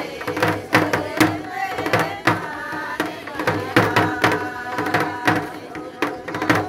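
Karsa folk song: voices singing together over drum beats struck about twice a second.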